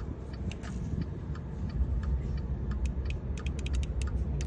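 Rapid, irregular light clicks over a low steady rumble; the clicks come faster and more densely about three seconds in.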